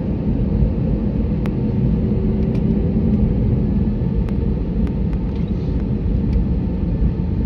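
Steady low rumble in the cabin of an Airbus A321 airliner taxiing after landing, with a few faint clicks.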